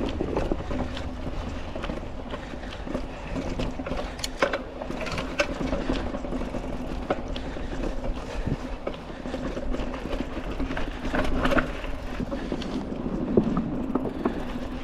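Mountain bike on tubeless tyres rolling over a rough, rooty dirt trail: steady tyre and trail noise with frequent sharp knocks and rattles from the bike as it hits roots.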